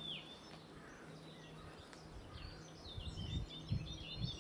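Small birds chirping: a couple of down-slurred calls at the start and a busier run of twittering about three seconds in, over a faint steady low hum, with a few soft low bumps near the end.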